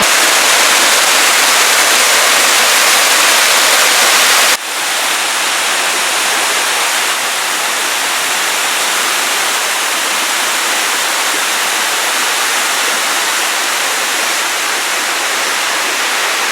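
Waterfall, a steady rush of falling water. About four and a half seconds in the sound drops suddenly a little quieter and duller, then carries on steadily.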